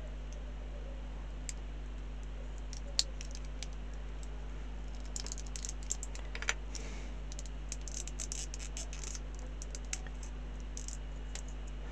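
Small plastic model-kit parts clicking and tapping against each other as they are handled and fitted together: scattered light clicks, a sharper one about three seconds in, and clusters of them in the middle and toward the end.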